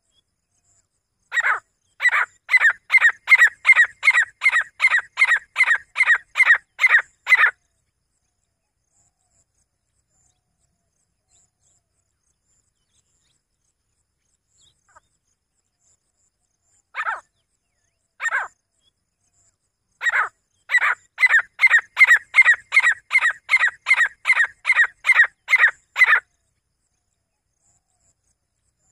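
Grey francolin calling: a long run of evenly repeated notes, about two or three a second, then a long pause. Two single, spaced-out notes follow, leading into a second long run of the same repeated notes.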